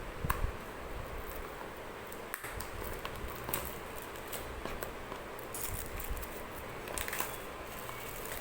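Hands working at the packaging of an Apple AirPods box: scattered small clicks and crackles over a steady hiss.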